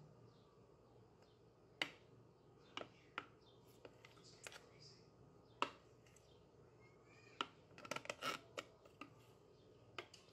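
Metal spoon knocking and scraping against the plastic bowl of a food processor while working thick almond butter: scattered sharp clicks, with a quicker run of clicks and scrapes about eight seconds in.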